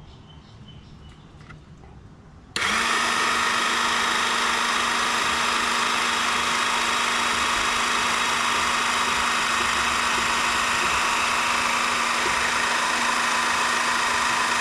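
12 V electric hydraulic car jack's motor switching on suddenly about two and a half seconds in and running steadily with a constant hum as the down button lowers the jack.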